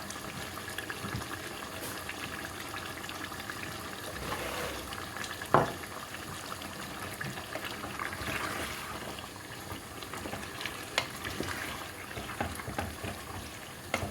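Chicken and whole tomatoes cooking in a karahi: a steady sizzling, bubbling hiss, broken by a few sharp knocks of a utensil against the pan. The loudest knock comes about halfway through.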